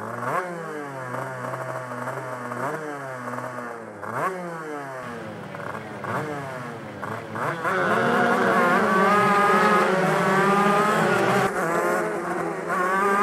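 Two-stroke shifter kart engines: during the first few seconds a kart engine revs up and down over and over. From about eight seconds it gets louder, with several engines running together at high revs.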